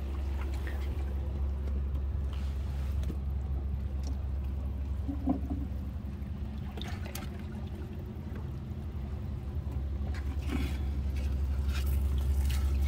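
Water sloshing and dripping as a green mesh keep net holding caught fish is hauled up through the water, with a few small splashes and knocks. A low steady rumble runs underneath.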